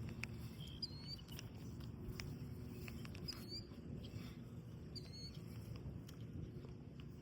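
A small bird gives a short high chirp three times, about two seconds apart, over a steady low rumble with scattered light clicks.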